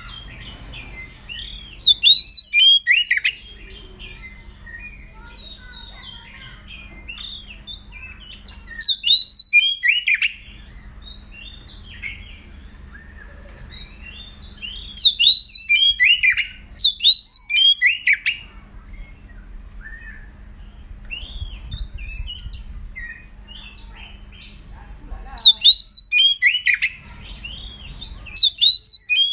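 Oriental magpie-robin singing: loud bursts of rapid, sharply rising and falling whistled and scratchy notes, in phrases a few seconds apart, with pauses between them.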